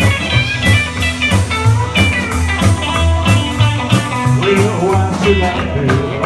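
Blues band playing an instrumental break between sung verses: guitar to the fore over bass and a regular drum beat.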